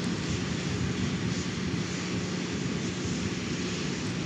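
Steady rushing noise with a low, even hum underneath, unchanging throughout.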